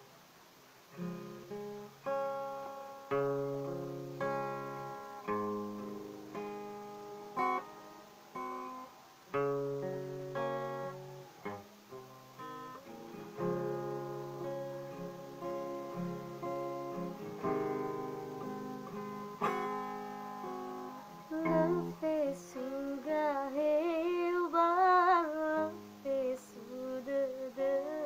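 Acoustic guitar playing chords, each one struck and left to ring. About three-quarters of the way through, a woman's voice comes in singing with a wide vibrato over the guitar.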